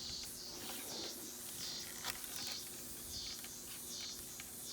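Forest insects chirring in repeated high pulses, roughly three every two seconds, over a faint steady hum, with a couple of light clicks from footsteps or twigs.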